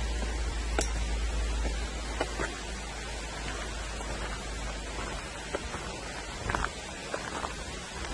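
Steady hiss of a low trickle of water running over rocks, with wind rumbling on the microphone for the first few seconds and scattered light clicks.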